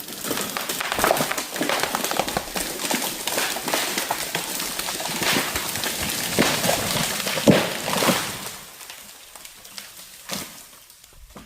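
White pine tree coming down, its branches cracking and snapping in a dense crackle that dies away over the last few seconds.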